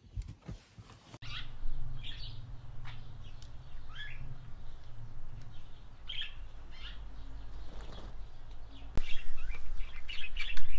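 Small birds chirping in short, sharp calls every second or so, busier near the end, over a low steady background hum.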